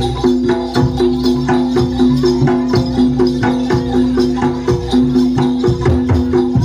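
Live jaranan gamelan music: quick repeating metallophone notes over a held low tone, driven by regular drum strokes and a shaking rattle.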